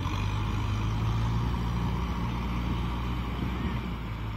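Kubota tractor's diesel engine running steadily under load as it pushes mud with a front dozer blade through a flooded paddy.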